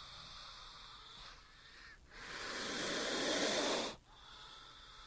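Cobra hissing: a loud breathy hiss lasting about two seconds in the middle, with fainter hissing before and after it.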